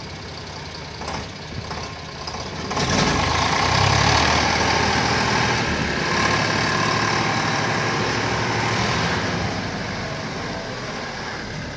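Diesel engines of a tractor and a small tipper truck running, rising hard under load about three seconds in as the mud-stuck truck is hauled forward, then easing off near the end.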